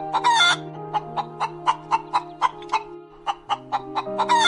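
Hen clucking: two short calls, one just after the start and one near the end, over background music with an even beat of about four ticks a second.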